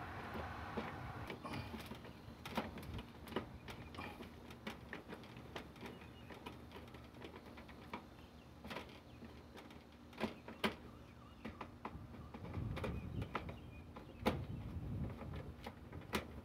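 Hand screwdriver turning screws through a plastic ceiling mounting plate: irregular small clicks and scrapes, with a handful of sharper knocks.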